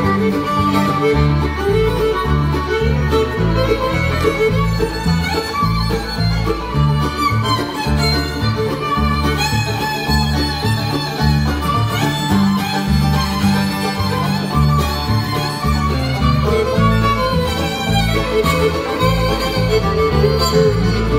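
Live bluegrass band in an instrumental break, the fiddle taking the lead over banjo, mandolin, acoustic guitar and an upright bass line.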